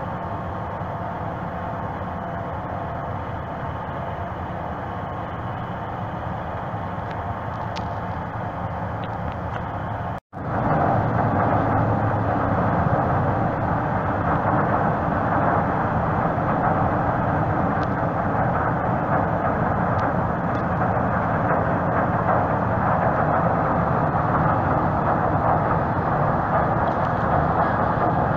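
Large car ferry's engines and propellers working as it manoeuvres close to the quay: a steady mechanical noise with a faint hum in it. It cuts out for a moment about ten seconds in and comes back louder.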